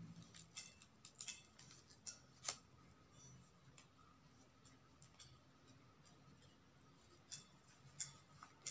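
Faint scattered clicks and rustles of satin ribbon being handled against a wire basket handle, mostly in the first couple of seconds, with a couple more near the end.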